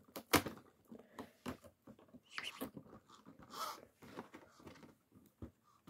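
Advent calendar compartments and small fidget toys being handled: scattered light taps, clicks and rustles, with one sharper click about a third of a second in.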